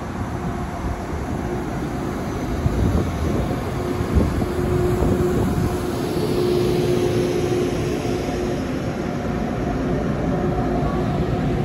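Taiwan Railways EMU1200 electric multiple unit pulling out of the station and passing close by: a steady rumble of wheels on rail with a faint hum over it.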